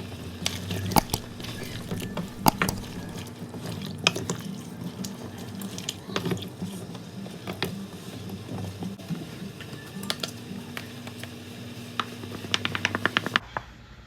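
Cooking utensils clinking and knocking against a pot now and then, over a steady low hum, with a quick run of clicks near the end.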